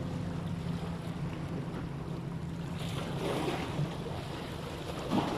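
Wind buffeting the microphone over a steady low engine hum, which fades after about three seconds. A faint voice comes near the end.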